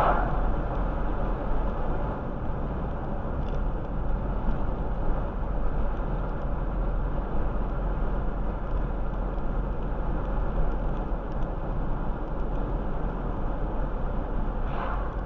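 Steady road and tyre noise from inside a car cruising at about 35 mph. An oncoming car swishes past at the start, and another just before the end.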